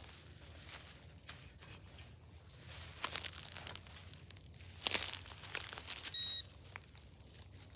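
Dry leaves and loose soil crunching and rustling underfoot and around a freshly dug hole, with scattered crackles. About six seconds in, a short, high electronic beep from a metal detector.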